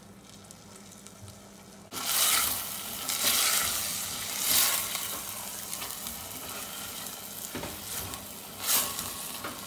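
Diced chicken breast sizzling in hot oil in a stainless steel pot while being stirred with a spatula. The sizzle starts loudly about two seconds in and swells and falls with the stirring.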